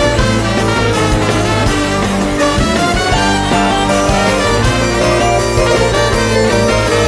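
A Balkan rock band playing live: a loud, steady instrumental passage with drums, bass and melody instruments, and no singing.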